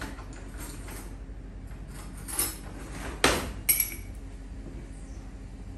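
Metal cutlery and kitchen utensils clinking as they are rummaged through, with three sharp clinks between about two and four seconds in, the middle one the loudest.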